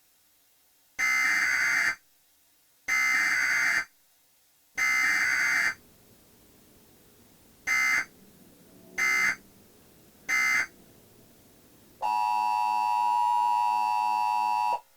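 Emergency Alert System header tones: three raspy, buzzing data bursts about a second long each, then three shorter bursts, then a steady electronic attention tone lasting about three seconds that cuts off abruptly. It is the signal that announces an emergency broadcast.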